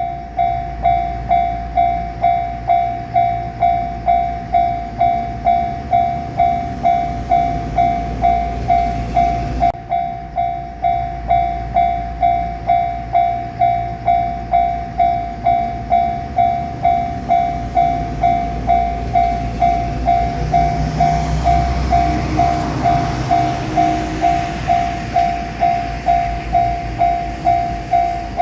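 Japanese railway level-crossing alarm bell ringing its steady kan-kan, about one and a half strikes a second, warning that a train is coming. From about twenty seconds in, a JR Shikoku 8000 series express electric train rushes through the crossing under the bell, fading out a few seconds later.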